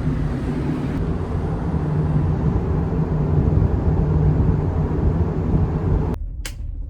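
Steady low mechanical drone with a hum on board a long-distance ferry, the ship's engine and ventilation noise. About six seconds in the higher part of the noise cuts off abruptly, and a short click follows.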